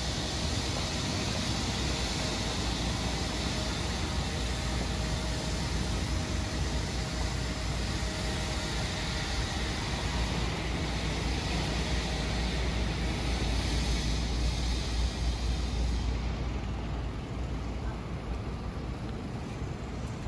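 City street noise with a motor vehicle running close by: a steady low rumble and hiss that builds to a peak about fifteen seconds in and then eases off.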